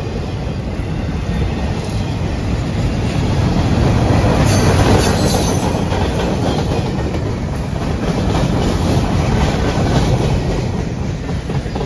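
Freight train boxcars rolling past close by: a steady rumble of steel wheels on rail with clickety-clack over the rail joints, loudest about four to five seconds in.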